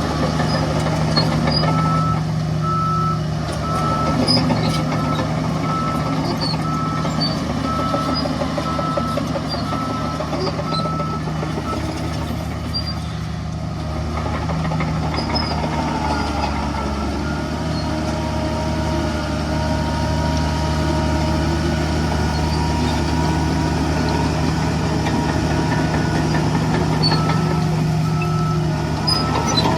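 Heavy construction vehicle's diesel engine running with a reversing alarm beeping in an even, repeating pattern, which stops about eleven seconds in and starts again near the end.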